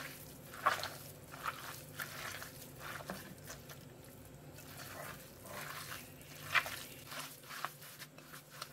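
A hand squeezing and kneading raw kebab mixture of minced meat, ground onion and spices in a glass bowl: soft, irregular wet squelches.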